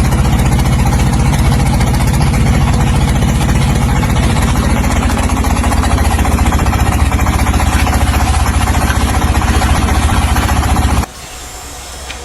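A loud engine running steadily with a fast, even pulse, cutting off abruptly about eleven seconds in.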